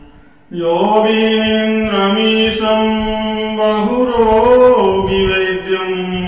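A man chanting a mantra in long, drawn-out notes, beginning after a short pause about half a second in. The held pitch wavers and briefly lifts around four seconds in.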